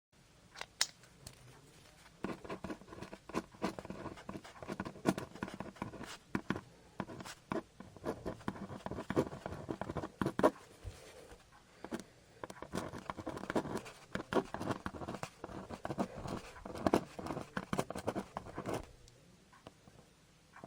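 Faint, irregular scratching and clicking, like small objects being handled or scratched close to the microphone, going on for most of the stretch and stopping near the end.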